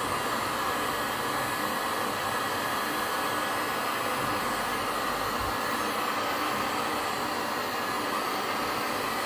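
1800-watt Black+Decker heat gun running steadily, its fan blowing hot air in an even, unbroken hiss onto a flattened strip of PVC pipe to soften it.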